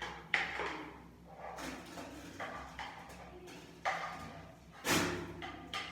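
Washing out a container at a bathroom sink: several sudden bursts of splashing and handling noise, each fading within a second, with sharp ones near the start and about five seconds in.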